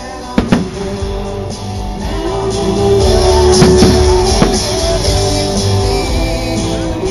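Loud rock music with guitar and singing played over a firework display's sound system, cut through by several sharp bangs of fireworks bursting: two near the start, a cluster in the middle and one at the very end.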